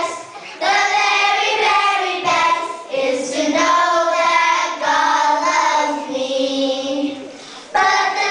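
A group of children singing together in unison. They break off briefly at the start, sink to a softer held note a little past the middle, then come back in loudly near the end.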